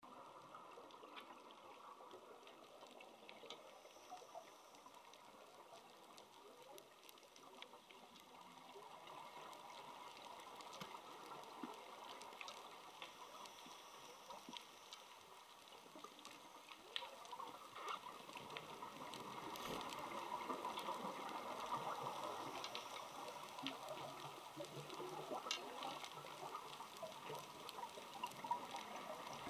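Faint underwater ambience picked up by a dive camera: a low hiss with scattered clicks and crackles. It swells louder for several seconds a little over halfway through.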